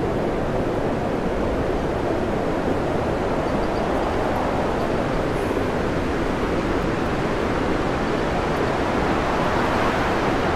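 Storm wind and heavy sea around a tanker ploughing through rough water: a steady, dense rush of wind and waves breaking against the bow, with no let-up.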